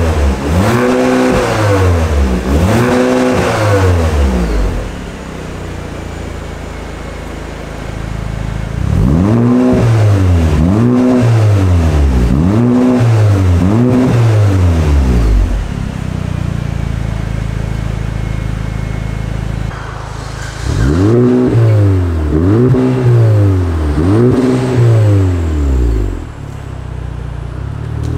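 Audi B8.5 A5 Sportback's engine through a Fi Exhaust valvetronic catback with quad tips, being free-revved in sets of quick blips about a second apart, settling to a steady idle between sets. The first three blips are with the exhaust valves closed. The next six, about nine seconds in, are with the valves open and louder, with a louder idle after them. A further set of four or five blips starts about 21 seconds in, followed by idle.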